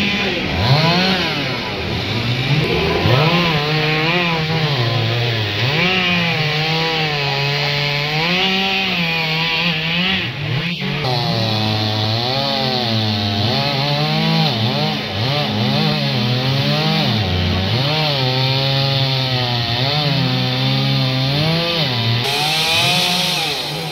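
Two-stroke chainsaw cutting through a thick fallen tree trunk, its engine revving up and dropping back again and again as the chain bites into the wood. There is a single sharp click about halfway through.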